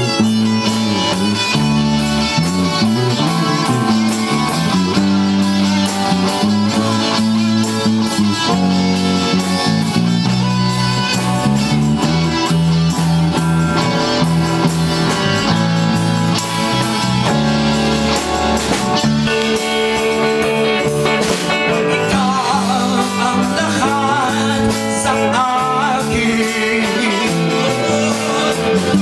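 A small band playing a song live in rehearsal, led by electric and acoustic guitars over keyboard and drums, with a wavering melody line coming in during the second half.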